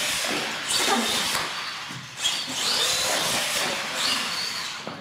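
Radio-controlled monster truck driving in surges of throttle, its motor and drivetrain whining up and down in pitch over a gritty running noise, about three pushes that fade away near the end.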